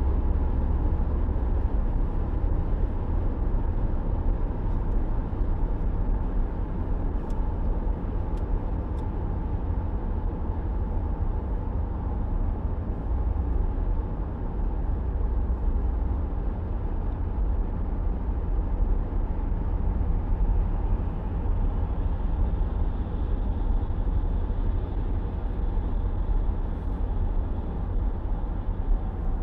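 A car driving along a road: steady low rumble of engine and road noise. A faint high whine joins about two-thirds of the way in.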